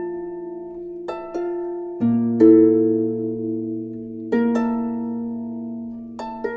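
Slow background music of plucked chords, a new chord struck every second or two and left to ring and fade.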